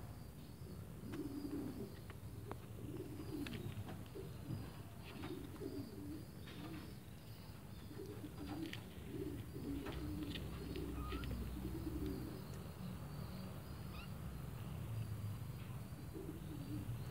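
A kitten chewing a mouse, with sharp wet clicks and crunches every second or so. Low cooing calls come and go underneath.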